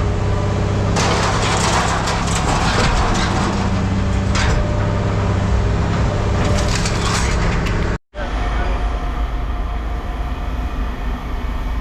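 Heavy scrap-yard machinery running, with loud crunching and cracking of scrap metal being crushed in several bouts over the first eight seconds. It breaks off abruptly and gives way to a steadier machine drone.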